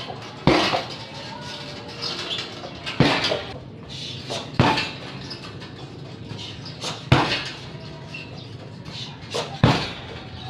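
Five heavy smacks of kicks landing on a hanging teardrop heavy bag, one every two to two and a half seconds.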